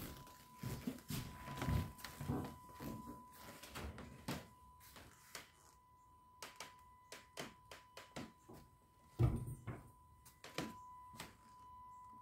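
Scattered soft knocks and thumps at irregular intervals, the strongest about nine seconds in, over a faint steady high tone.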